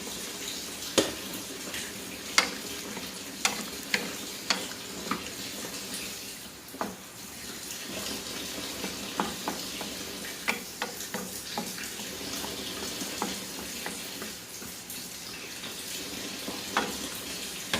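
Pumpkin chunks being put into a pot of boiling chicken broth and stirred in: a steady bubbling hiss with irregular knocks and clinks of the spoon and pieces against the pot.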